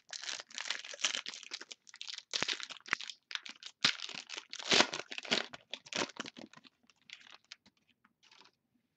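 A football card pack's shiny wrapper being torn open and crinkled, a dense crackling for about six seconds. It thins to a few faint clicks and rustles as the cards are slid out of the pack.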